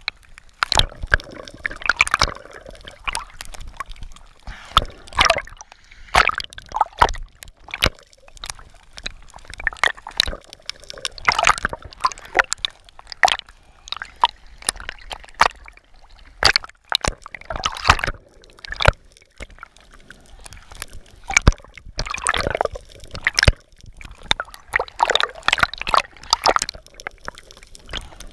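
Sea water sloshing and gurgling around a camera in a waterproof casing as it moves just under and through the surface, with irregular splashes and sharp clicks.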